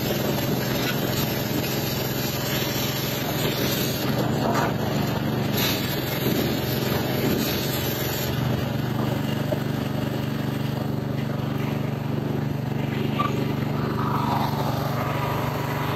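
Pressure washer running steadily, its lance spraying water onto the steel end of a tanker. The high hiss of the spray thins out about halfway through, leaving the machine's steady drone.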